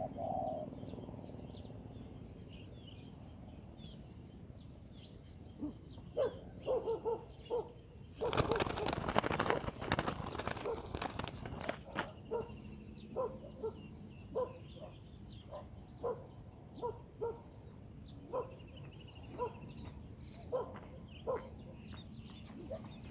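Spotted doves cooing in short, low, repeated notes, with small birds chirping faintly and high above. Near the middle, a few seconds of loud noisy rustling break in.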